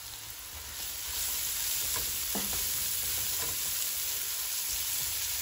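Diced onion, shallot, garlic, chili and red bell pepper sizzling in olive oil in a nonstick pan while being stirred with a silicone spoon. The sizzle grows louder about a second in, then holds steady.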